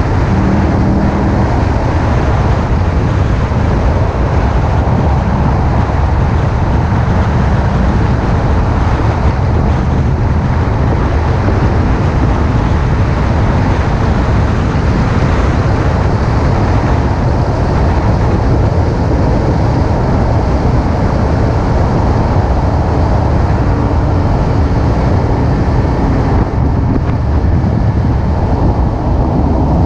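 Car lapping a race track at speed, heard from a camera mounted low on the outside of the car: a loud, steady low-heavy rush of wind and road noise.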